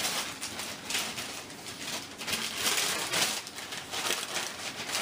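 Christmas wrapping paper being torn and crumpled off a gift box, with irregular rips and rustles.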